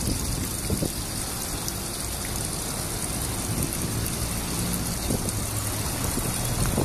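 Water leaking from the repair coupling on a buried water main, a steady hiss of running water, with road traffic rumbling past.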